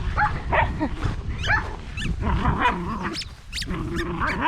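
English bulldog puppies whining and yipping: many short, high squeaks in quick succession, thicker in the second half, over a steady low rumble.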